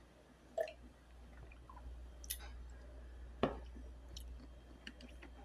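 Faint mouth sounds of someone sipping and tasting juice: three or four short lip and tongue clicks over a steady low hum.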